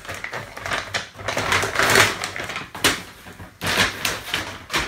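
Paper gift bag and tissue paper rustling and crinkling in irregular bursts as a present is pulled out and unwrapped by hand, loudest about two seconds in.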